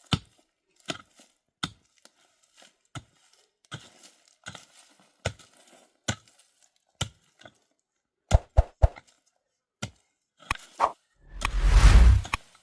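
Repeated sharp strikes of a hand tool, about one a second, then a few quicker knocks and, near the end, a louder rushing clatter with a low rumble.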